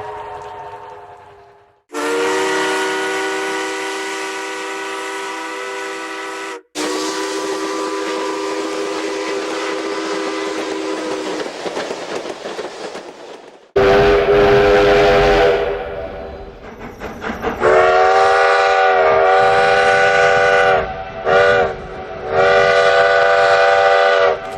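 Steam locomotive chime whistles, several recordings spliced back to back: each is a long blast of several notes sounding together, with steam hiss trailing off between them. The later whistle sounds two long blasts with a short toot between them near the end.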